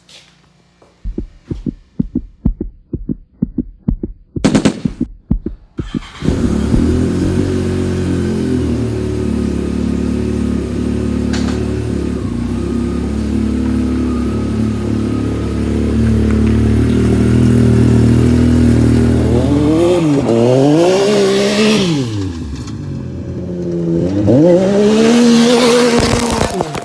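A few seconds of irregular knocks and clicks, then a Yamaha YXZ1000R's three-cylinder engine starts and runs steadily. Near the end it is revved up and back down twice.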